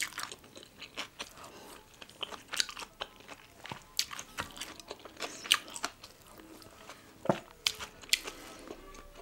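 Close-miked eating of young radish kimchi bibimbap: chewing with irregular crisp crunches, the loudest about seven seconds in.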